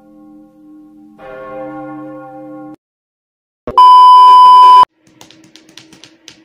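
Deep bell-like chimes ring, struck again just over a second in, and stop abruptly. After a second of silence comes a loud, steady TV test-pattern beep over static, lasting about a second and cutting off sharply, then a few faint clicks.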